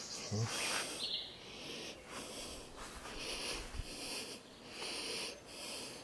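An insect stridulating outdoors in a steady run of high-pitched, hissy chirps, about two a second.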